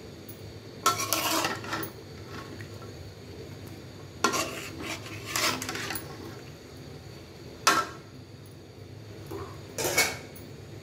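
Metal spatula scraping and clinking against a cooking pan as pumpkin vine tips are stirred into boiled lentils, in four short bouts of strokes with pauses between.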